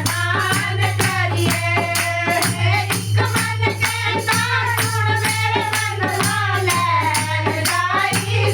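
Bhajan music from a kirtan group: a wavering melody, sung or played, over a steady beat of jingling, rattle-like percussion, with a constant low hum underneath.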